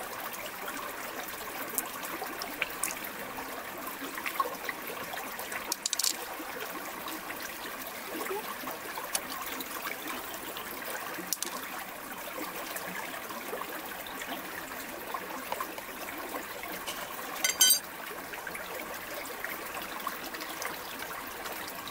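Shallow water trickling steadily over rocks, with scattered small clicks and taps as a freshwater mussel's shell and pearls are handled, and a quick rattle of clicks about three-quarters of the way through.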